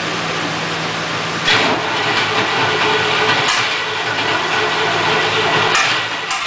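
Jet boat's engine running on its trailer, going up to a louder, higher-pitched run about a second and a half in and holding there.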